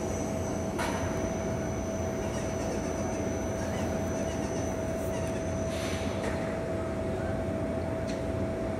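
Steady mechanical hum: a low rumble with a constant mid-pitched whine, and a thin high whine that stops about six seconds in. Two brief hissy bursts, about a second in and about six seconds in.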